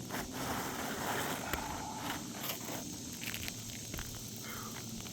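An asphalt roof shingle being slid out from under the course above it after its nails were loosened: a gritty scraping in the first couple of seconds, then light rustling and small clicks as it is handled.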